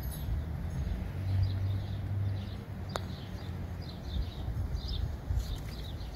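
Small birds chirping in short, quick notes throughout, over a low background rumble with a steady hum in the first half. A single sharp click comes about three seconds in.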